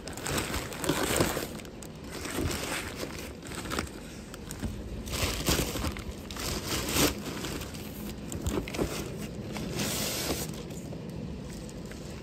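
Black plastic courier mailer bag crinkling and rustling in irregular bursts as hands tear it open and pull it away from a cardboard shoe box.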